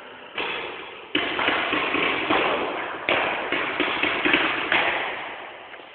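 Paintball markers firing in several bursts of sharp pops, each burst ringing on in the echo of a large empty warehouse.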